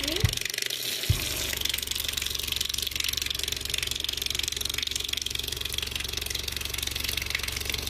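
Loudspeaker playing a very low 23 Hz tone, heard as a steady buzzing hum with a hiss over it. Near the start a click cuts the hum off; it comes back with a second click about a second in.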